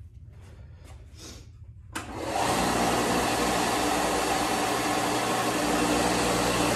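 Bench belt sander switched on about two seconds in, then running steadily while a small wooden piece is sanded on the belt to cut a profile in it. Before it starts there are only a few faint handling sounds.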